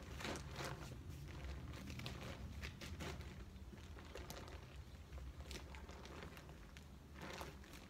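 Deflated Berghaus Air4 air tent's fabric rustling and crinkling in short irregular bursts as it is rolled up on the grass, over a low steady rumble.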